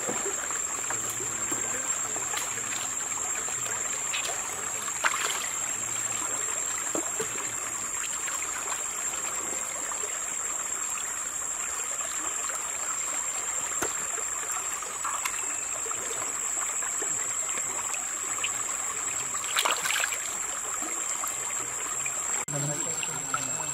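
Shallow forest stream running and trickling around hands working in the water, with a couple of short splashes about 5 and 20 seconds in. A steady high-pitched whine sits over the water sound.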